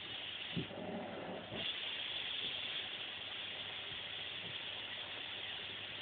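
Vacuum cleaner running steadily, a constant hiss. About half a second in there is a short knock, and for about a second after it the hiss changes, its upper part dipping while a lower sound comes in.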